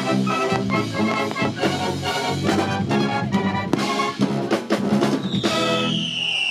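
Military band playing brass and drums with a steady beat. Near the end a high whistle glides downward, typical of a whistling firework.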